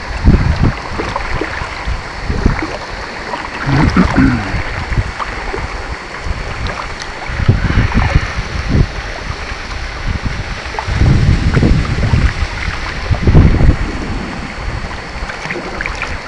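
Water sloshing and lapping around a homemade bamboo kayak on a river, with wind buffeting the microphone in low rumbling gusts every few seconds.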